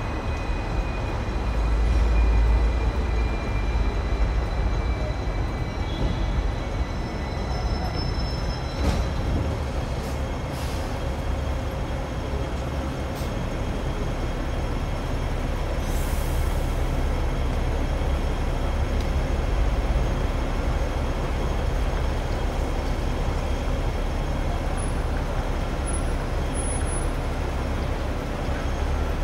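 Hong Kong double-decker tram running, a steady low rumble of wheels and motor with a faint falling whine in the first few seconds and a brief hiss about sixteen seconds in.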